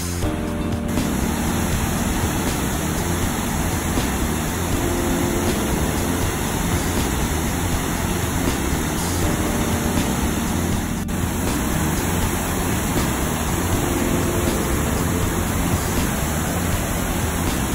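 Steady engine rumble under an even rush of wind and water noise, as heard aboard a moving vessel or vehicle.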